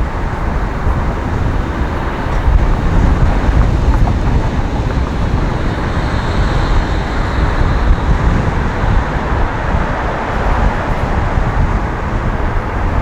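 Steady road and traffic noise picked up by a camera on the roof of a moving van, with a heavy, unsteady low rumble of wind and road noise on the microphone.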